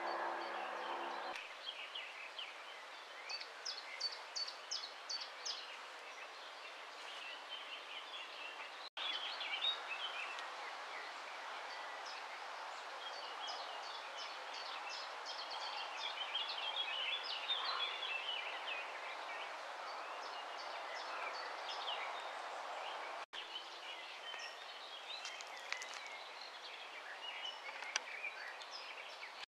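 Outdoor ambience of small songbirds chirping and twittering over a steady background hiss. A steady droning tone stops about a second in, and the sound cuts out briefly twice.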